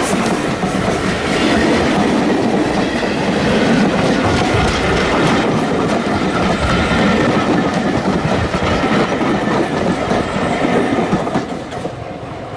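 Steam-hauled train passing close by, the wheels of the locomotive and carriages clattering over the rail joints. The sound dies away near the end as the train moves off.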